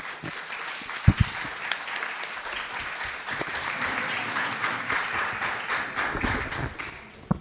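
Audience applause in a hall, many hands clapping, ending abruptly near the end. About a second in, two loud thumps from the microphone being handled as it is passed.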